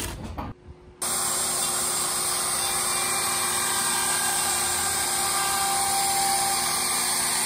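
DeWalt wood router running steadily, its bit trimming the edge of a plywood sheet flush with the pine framing beneath it. It starts abruptly about a second in.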